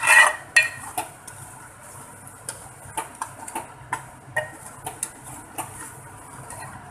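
A steel spoon scraping and clinking against the sides and bottom of a metal cooking pot while stirring thick mutton curry gravy to mash in the tomatoes. There is a louder scrape right at the start, then irregular clinks and knocks.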